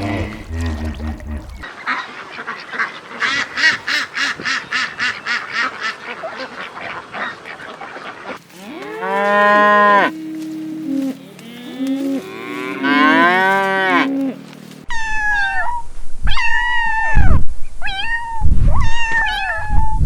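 Farm animals calling one after another, several different kinds in turn, including a cow mooing. Rapid repeated calls come first, then long drawn-out calls, and louder honking calls near the end.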